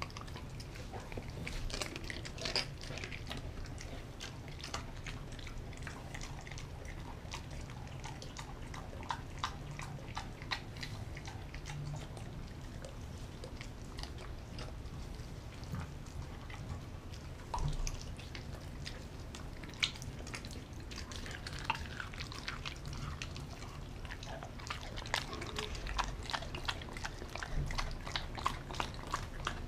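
Large dog chewing and biting raw chicken: wet, irregular clicks and smacks of jaws and teeth on meat, coming faster in the last few seconds.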